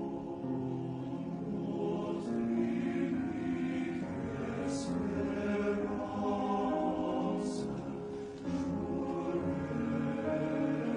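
Men's chorus singing slow, held chords as a music track.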